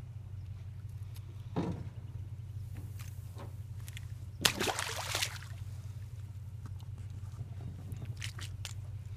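A white bass drops off the line back into the water with a short splash about four and a half seconds in. A shorter, softer sound comes about a second and a half in. A steady low hum runs underneath.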